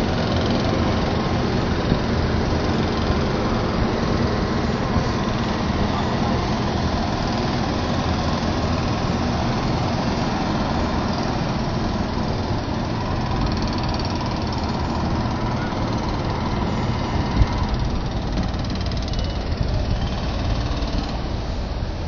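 A steady mechanical drone, like a motor running, with a faint steady whine over a busy open-air background; a single short knock about 17 seconds in.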